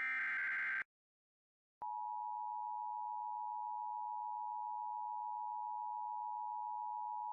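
Emergency Alert System signal: the last of the SAME header's digital data bursts, a harsh buzzy sound lasting under a second. About two seconds in, after a short gap, a steady alert tone comes in and holds.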